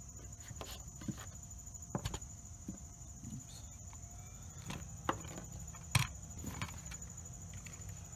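Handling knocks of a LiPo battery pack and a glass digital kitchen scale on a wooden table: scattered taps and a few sharp knocks, the strongest about two, five and six seconds in. A steady high insect chirring, like crickets, runs underneath.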